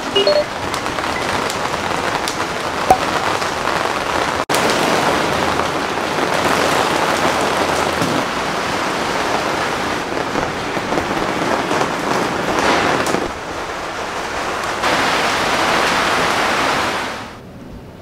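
Steady rain falling on a fabric retractable awning and the surfaces around it, an even hiss of rain with brief breaks where the shots change. It cuts off suddenly near the end.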